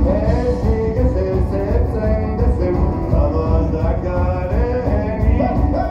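Live band music, loud and continuous: a voice sings a melody over guitar and a heavy bass.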